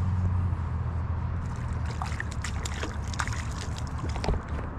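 Water sloshing and splashing, with a run of small clicks and knocks, over a steady low hum.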